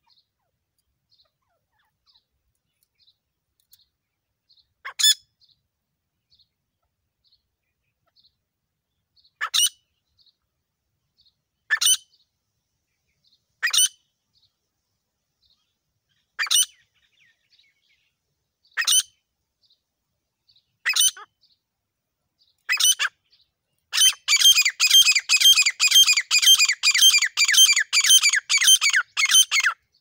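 Grey francolin calling: single loud, shrill notes every two to three seconds, then, for the last six seconds or so, a fast run of repeated notes at about three and a half a second.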